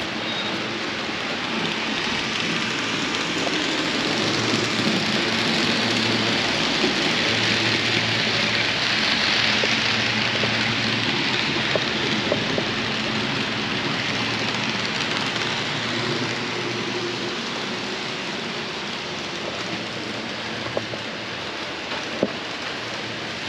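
HO-scale model trains running on the layout's track, a steady rattling hiss of wheels on rails. It swells to its loudest about nine seconds in, then slowly fades.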